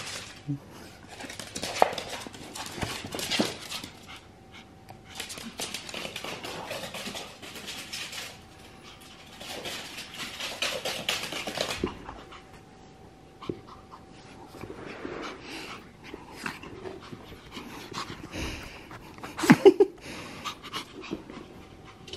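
Excited Pomeranian panting hard in several long spells, with a brief, louder outburst near the end.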